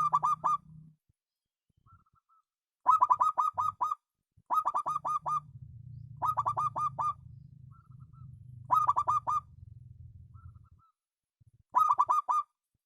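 Zebra dove (perkutut) singing: six short phrases of rapid cooing notes, a few seconds apart, with faint short notes between them. A low hum runs under the middle phrases.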